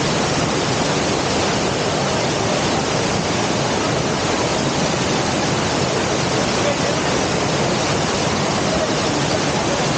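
Waterfall pouring: a loud, steady rush of falling water that drowns out everything else.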